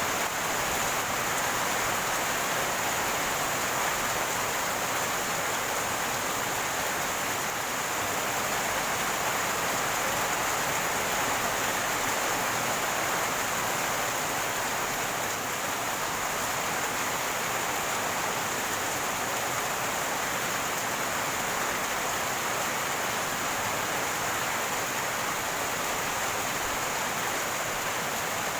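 Rainwater running and gurgling as a steady rush of flowing water, with a constant high hiss above it.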